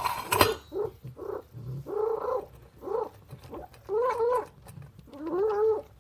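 Domestic cat vocalising loudly while eating: a short noisy burst, then a run of pitched, arching cries about once a second that grow longer toward the end.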